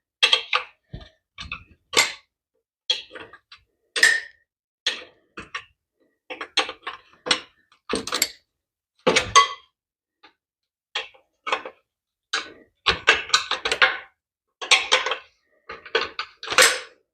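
Irregular metal clinks and clanks of hand tools and motorcycle parts being handled and set down during a teardown. There are about two dozen short knocks, some ringing briefly.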